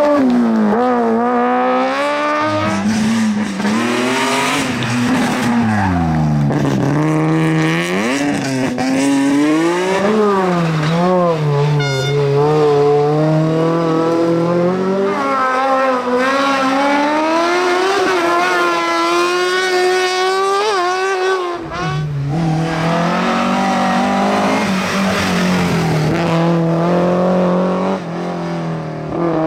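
Hillclimb competition car engines revving hard, the pitch climbing and dropping again and again through gear changes and lifts. The sound changes abruptly to another engine a little over two-thirds of the way through.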